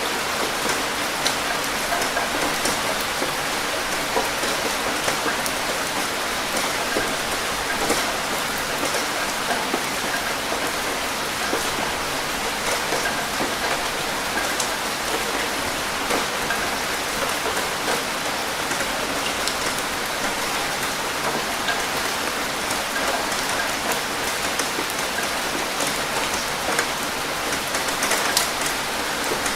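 Steady rain falling on a surface, an even hiss dotted with the taps of single drops.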